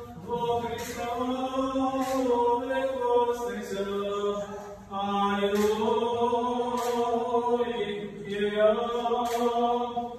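Orthodox liturgical chant sung during a baby's baptism: long held notes that step up and down in pitch, with a short break about five seconds in.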